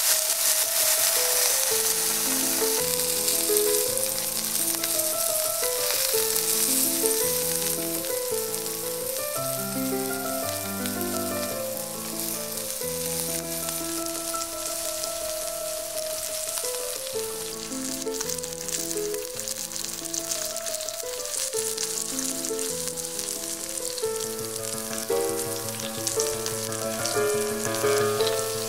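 Thick porterhouse steak searing in a hot cast-iron skillet: a loud, steady sizzle of fat and juices that is strongest at first and eases gradually, with background music underneath.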